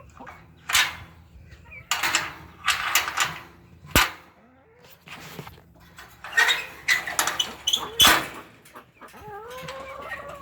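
Chickens clucking and squawking in short, irregular calls, with a longer rising call near the end and two sharp knocks in between.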